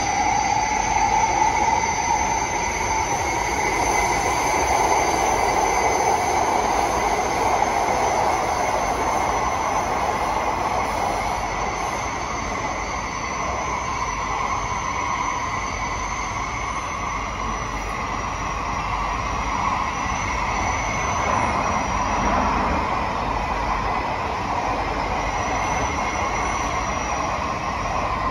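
Kawasaki & CSR Sifang C151B metro train running through a tunnel, heard from inside the carriage: steady rumble of wheels on rail with a high-pitched whine above it. A tone in the middle rises a little in pitch over the first few seconds, then holds steady.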